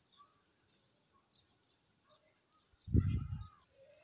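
Faint bird chirps over quiet outdoor ambience, broken about three seconds in by a brief low rumble, the loudest sound here, lasting about half a second.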